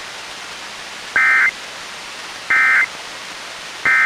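Three short bursts of EAS/SAME end-of-message data tones, a warbling digital buzz about a third of a second long and repeated roughly every 1.3 s, over steady radio hiss from a NOAA Weather Radio receiver. They close the required monthly test.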